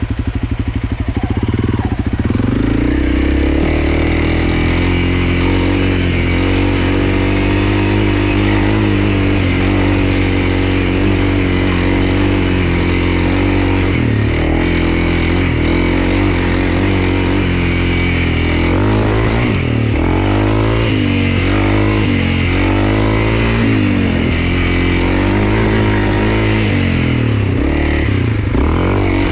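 Honda CRF300L single-cylinder engine running under way. It picks up revs about two seconds in, holds fairly steady, then rises and falls repeatedly through the second half as the throttle is worked.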